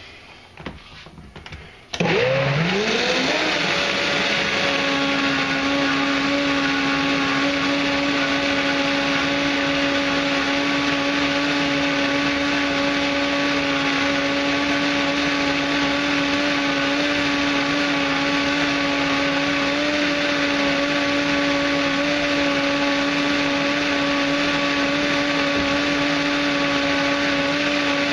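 Countertop blender switched on about two seconds in after a few knocks as the lid goes on, its motor spinning up quickly and then running at a steady high-speed whir while it purées a thick mix of cranberries, raisins, sugar and water.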